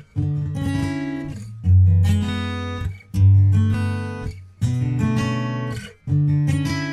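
Background music: acoustic guitar strumming chords, a new chord struck about every second and a half and left to ring.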